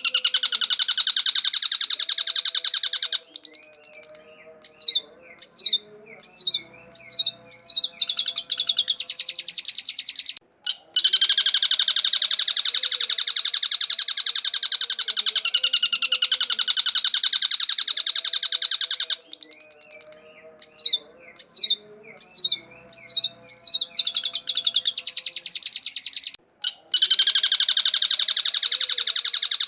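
Long-tailed shrike singing: long stretches of harsh, rapid chattering alternate with short bursts of warbled, wavering notes, the same sequence repeating in a loop about every 16 seconds.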